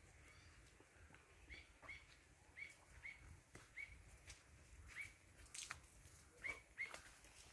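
A bird chirping faintly, about nine short, same-pitched chirps at an uneven pace of one or two a second, with a few soft clicks in between.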